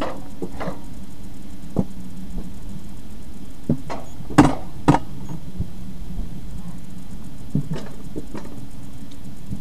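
Alpine coaster sled running down its steel rail track: a steady rumble and hum of the wheels on the rail, with a few short knocks and clatters as it rolls, the loudest two about halfway through, half a second apart.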